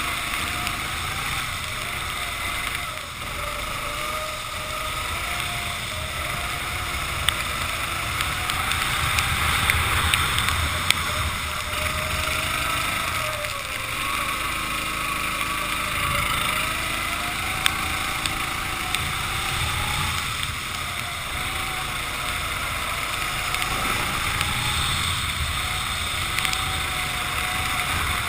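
Racing kart's engine heard onboard, its pitch rising and falling over and over as the kart accelerates out of corners and slows into them, under a steady rushing noise.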